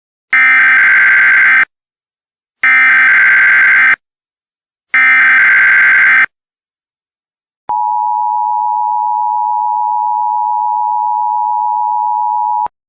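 Emergency Alert System header: three identical bursts of SAME digital data tones, each just over a second long with short gaps between them. These are followed by the EAS attention signal, a steady two-tone alarm that lasts about five seconds and cuts off suddenly. Together they mark the start of a new emergency broadcast message.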